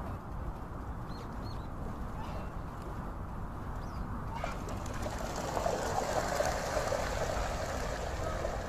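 Waterside ambience with a steady low rumble and a few faint, short waterbird calls. About halfway in, a rushing noise swells for a few seconds, then eases.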